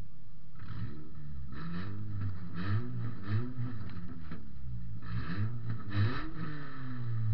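Toyota Matrix's four-cylinder engine revved hard again and again, its pitch climbing and dropping seven or eight times, heard from inside the car.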